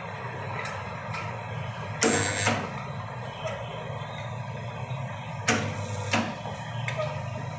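Car dent-puller spot welding machine working, with a steady low hum. A sharp half-second weld burst comes about two seconds in, and two short bursts follow a little past the middle.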